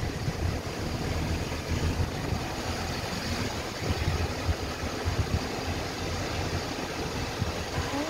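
Surf breaking and washing onto a sandy beach as a steady rush, under an uneven low rumble of wind on the microphone.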